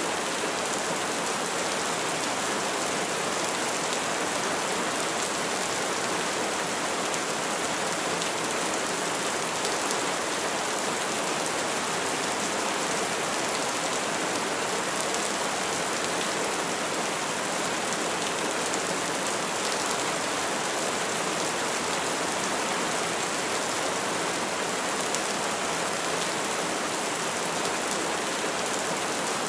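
Steady rain falling, an even, unbroken hiss of many drops on surfaces.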